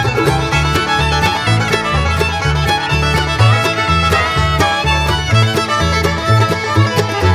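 Bluegrass-style background music with fiddle, banjo and guitar over a steady bouncing bass beat.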